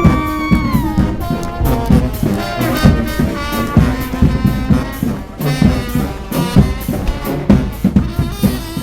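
Street brass band playing: trumpets and trombones over busy drums, with held horn notes that slide down about a second in.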